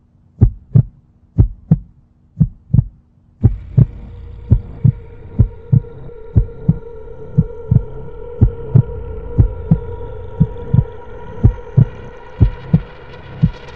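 Heartbeat sound effect: paired low thumps, lub-dub, about once a second. About three seconds in, a steady droning hum with one held tone joins under the beats.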